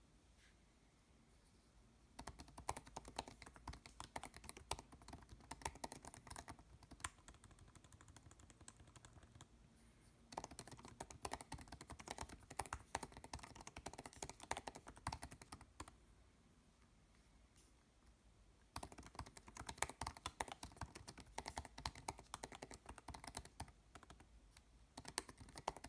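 Fast typing on a MacBook Pro with Touch Bar's low-travel butterfly-switch keyboard: rapid, light key clicks in three runs, separated by a brief break and a pause of about two seconds.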